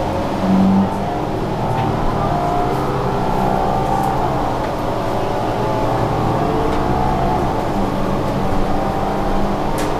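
New Flyer Xcelsior XD40 diesel city bus under way, heard from on board: a steady engine drone with a whine that slowly rises and falls. A brief low tone sounds about half a second in.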